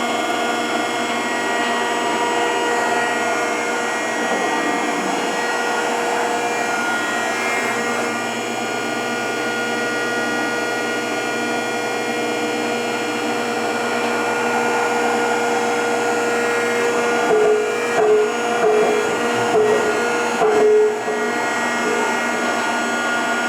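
Rockford hydraulic open-side planer running, its hydraulic drive and motors giving a steady whine with many tones. Near the end, five short louder blips at one pitch come through.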